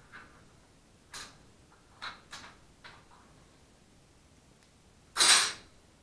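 Hand tools and engine parts clicking and knocking on a metal workbench during an engine teardown. About five seconds in there is one louder, brief scraping clatter.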